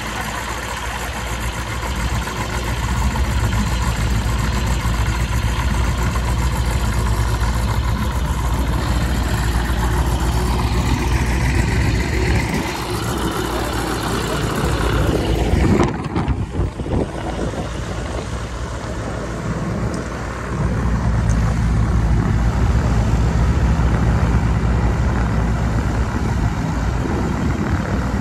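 Light aircraft piston engine running at idle, a steady low rumble. It drops away suddenly about sixteen seconds in and comes back louder a few seconds later.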